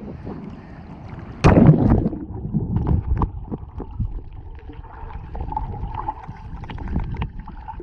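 Ocean water sloshing and washing at the shore, with a louder surge about a second and a half in, and wind buffeting the microphone.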